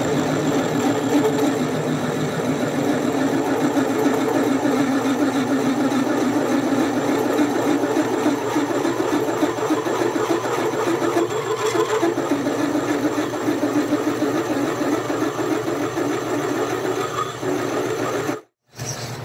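A 1/2-inch drill bit cutting steel under power, steady and continuous, boring through a weld-filled plug where an earlier hole was drilled off-centre. The tone drops a little about a second before the end.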